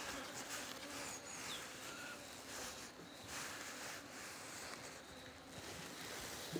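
Faint outdoor ambience: a light hum of honeybees, with a couple of short bird chirps about one and two seconds in.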